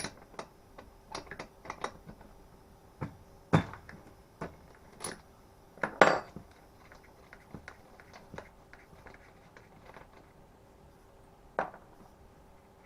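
Metal hand tools clicking and clinking against the engine of a Stihl FS36 trimmer as its spark plug is taken out, in scattered light taps with two louder knocks a few seconds in.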